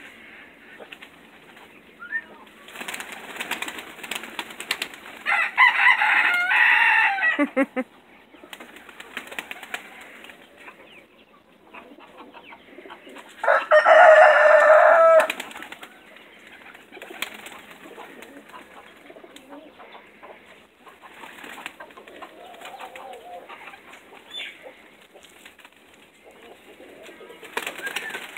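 Pigeons' wings flapping and fluttering repeatedly as the birds hop and fly about. Two loud drawn-out calls, each about two seconds long, stand out about a quarter and half way through; the first falls in pitch at its end.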